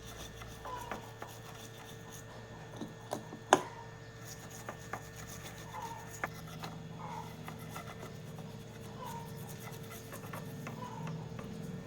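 Light scraping and rubbing with scattered clicks, one sharp click about three and a half seconds in, over a steady faint hum.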